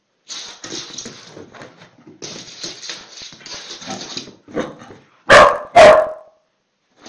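A dog making rough, excited play noises at a lemon half held out to it, then two loud barks close together a little after five seconds in.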